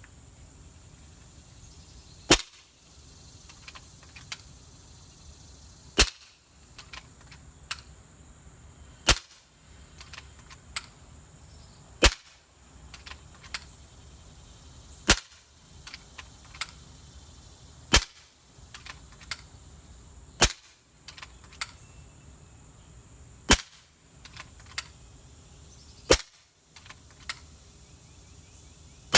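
Tuned .22 Kral Puncher Breaker PCP air rifle with a quiet kit, firing about nine shots on high power, roughly one every three seconds, each a sharp crack, with lighter clicks between shots.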